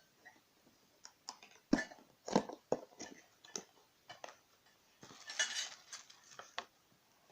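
A small cardboard box of heat-gun nozzles being handled and opened: scattered clicks and knocks, then a rustle about five seconds in as the packed nozzles are taken out.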